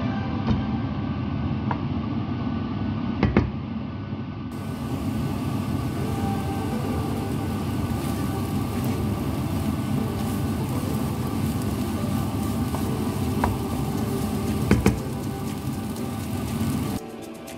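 Kimchi fried rice being stir-fried in a pan over a steady low rumble of kitchen noise, with a few sharp clinks of the spatula against the pan.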